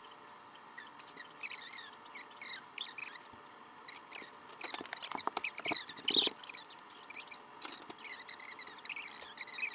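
Rubber bands squeaking and rustling as they are stretched onto a rubber band ball and picked out of a loose pile: short, high, wavering squeaks in clusters, with louder handling noise around five to six seconds in.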